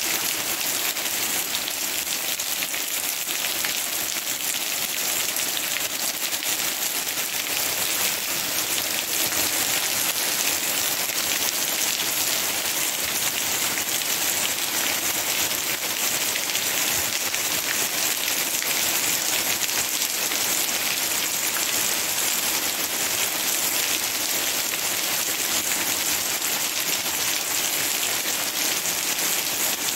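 Steady rain falling through leafy trees: an even hiss of many drops that holds at the same level throughout.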